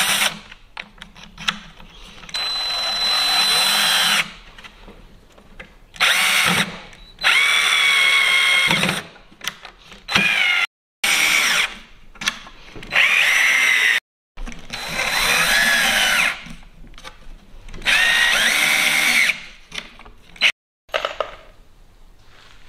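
Power drill driving wood screws into a wooden box, in about nine short bursts of a second or two each. The motor's whine climbs in pitch within each burst.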